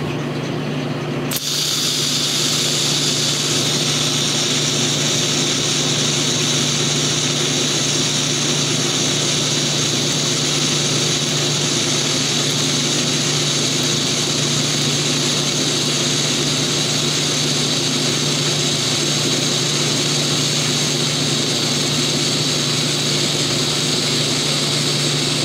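TIG welding arc on steel plate, struck about a second in and then held as a steady, even hiss while filler rod is fed in, over a steady low hum.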